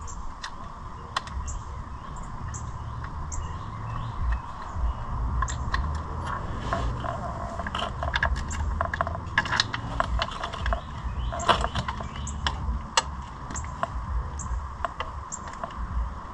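Scattered light metallic clicks and clinks from hand-work with metal parts and tools around a quad's front sprocket and chain, over a low steady rumble.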